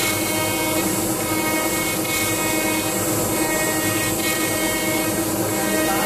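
CNC router spindle running steadily, its small end mill cutting plectrum shapes out of a timber sheet: a constant whine of several steady tones over a noisy cutting hiss.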